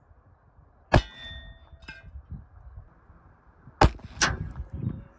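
Colt Mustang .380 ACP pocket pistol firing. One shot about a second in is followed by a metallic ring as the Fiocchi bullet strikes a copper pipe without getting through. Two more shots follow close together near the end.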